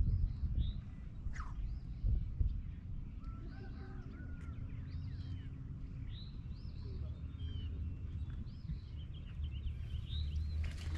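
Wild birds chirping and calling in many short notes over a steady low rumble.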